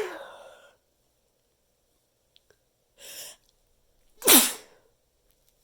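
Stifled sneezes muffled in a handful of tissues. The first sneeze fades out in the opening second. Then comes a short rush of breath about three seconds in, and a second muffled sneeze just after four seconds, the loudest sound, falling in pitch.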